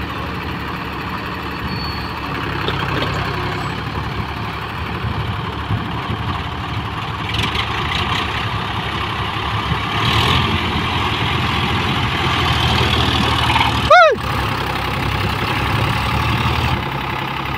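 Two diesel tractors, a John Deere and an Eicher 551 4WD, running hard under load as they pull against each other in the mud; the engine noise swells in the second half. A brief sharp high squeal cuts in about fourteen seconds in and is the loudest moment.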